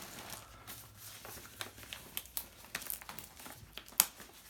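Paper crinkling and rustling as an item is unwrapped, with scattered sharp crackles, the loudest about four seconds in.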